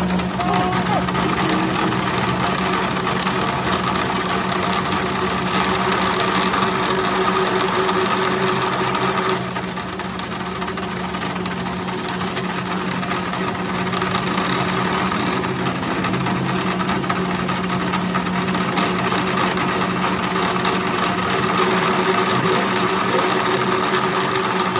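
A machine running steadily, with a constant hum under a dense grinding hiss that dips in level for a few seconds about ten seconds in.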